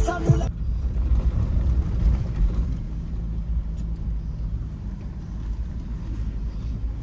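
Background music cuts off in the first half-second. After that, a Mahindra Thar being driven, its engine and tyres on the road making a steady low rumble, heard from inside the cabin.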